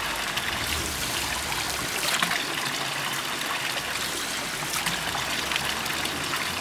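Spring water running from a fountain's spout into its basin, a steady trickling and splashing with a few brief louder splashes.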